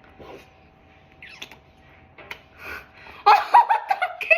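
A few faint short sounds, then about three seconds in a burst of loud giggling laughter in quick repeated pulses.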